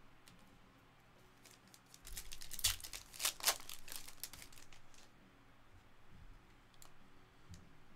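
A foil trading-card pack wrapper is torn open and crinkled by hand. There is a short burst of loud crackling tearing about two seconds in, followed by quieter rustling and clicks as the cards are handled.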